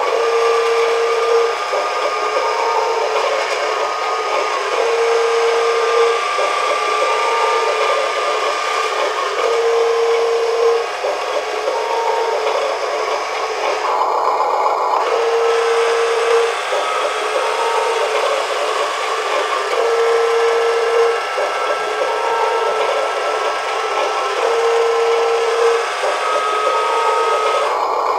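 Electric tipping drive of a 1/16 Amewi Arocs RC dump truck whirring steadily as it lowers the dump bed and then raises it again, with a short break about halfway through. A low electronic beep sounds for about a second roughly every four seconds.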